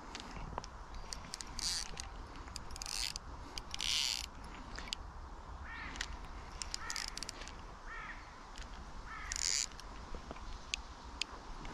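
Spinning reel's loosely set drag buzzing in short bursts and the reel ticking as a hooked carp pulls against the line. A few short bird calls come in near the middle.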